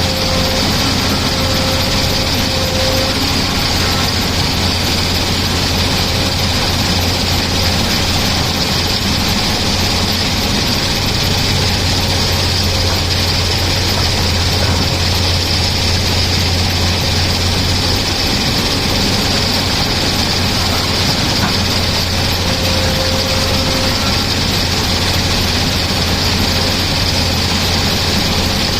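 Tata Hitachi excavator's diesel engine running steadily, a constant low drone with a steady high hiss over it.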